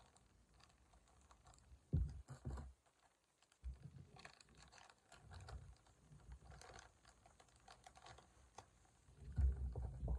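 Thin plastic bag of latex balloons crinkling and crackling in irregular bursts as it is opened and a hand rummages inside it, with a few louder handling bumps, the loudest near the end.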